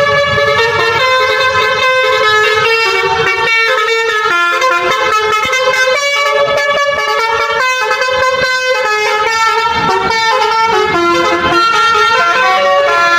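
Multi-tone bus horn sounding a continuous run of changing notes, stepping from pitch to pitch like a tune.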